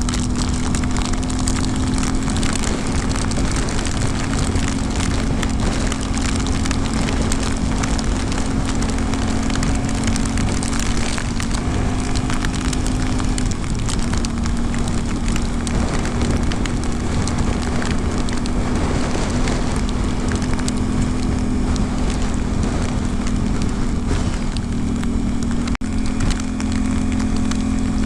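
Yamaha Ténéré 700's parallel-twin engine running at a steady pace on the move, its note shifting slightly a couple of times, under a steady wash of wind and rain noise.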